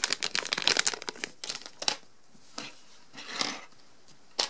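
Plastic minifigure blind bag crinkling as it is handled and rummaged through for a piece: dense crackling for about two seconds, then a couple of short crinkles.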